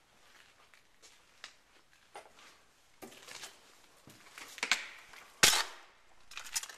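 Footsteps crunching over debris on a littered floor, with irregular crunches and one loud sharp crack about five and a half seconds in.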